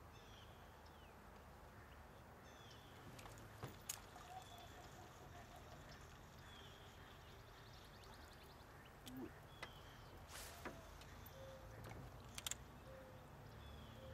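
Near silence, with faint short bird chirps every couple of seconds and a few sharp clicks and knocks. The loudest of these is a quick pair about twelve seconds in, and there is a brief rush of noise near ten seconds.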